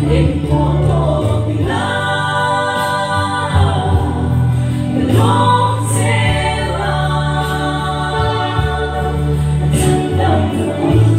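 Mizo gospel song, sung with instrumental backing over a bass line that moves in held notes.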